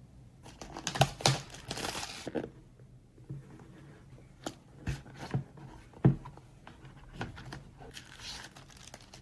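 Product packaging being opened by hand: crinkling and tearing for about two seconds, then a few sharp knocks and taps as the box is handled, and more rustling near the end.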